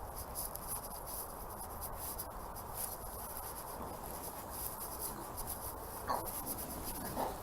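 Insects chirring steadily high up over a soft rustling of grass. Near the end come a couple of short whines from a dog.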